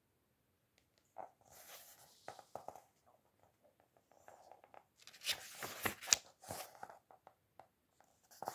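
Book pages being turned by hand, the paper rustling and crackling in two bouts.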